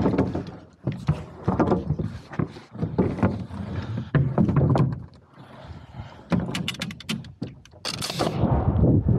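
Boards knocking and clattering as they are handled, then near the end a pneumatic framing nailer fires, with a short sharp hiss of exhaust air.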